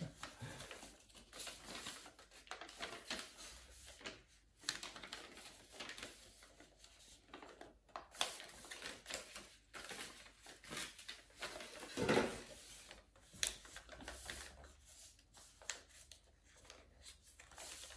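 Soft, irregular rustling, clicks and scrapes of things being handled and packed, with a louder rustle about twelve seconds in.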